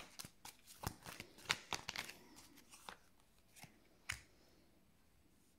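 Améthyste Love oracle cards being shuffled and handled by hand: quick, faint papery flicks and snaps through the first three seconds, then a single sharper snap about four seconds in.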